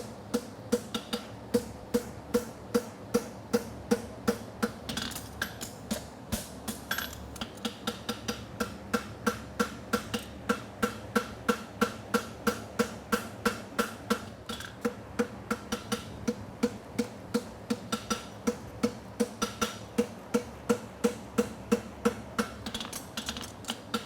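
Farrier's hammer striking a steel horseshoe bar on the anvil in a steady run of light blows, about three a second, each with a bright metallic ring, pausing briefly a few times as the shoe is shifted.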